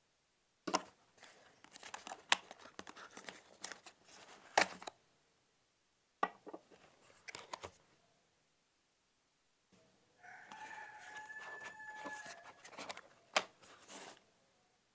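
Cardboard packaging and a plastic GoPro Media Mod frame being handled as the frame is taken out of its cardboard insert: sharp clicks, scrapes and rustles in three bursts. About ten seconds in, a long steady-pitched call sounds behind the handling for about two seconds.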